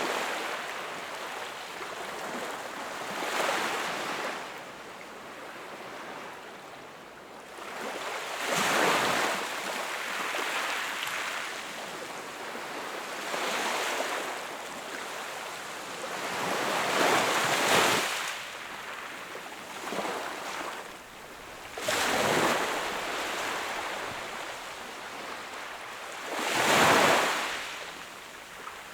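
Ocean waves breaking and washing onto the shore, a steady hiss of surf that swells into a fresh surge every few seconds. The loudest surge comes near the end.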